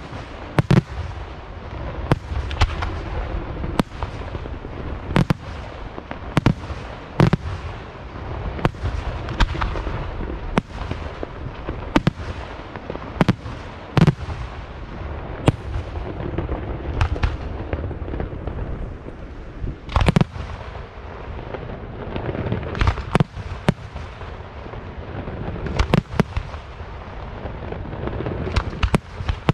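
Aerial firework shells bursting in a continuous display: sharp bangs about once every second or so, each trailing off in echo, over a constant crackle and rumble. The bangs thin out for a moment just after the middle, then resume with a loud one.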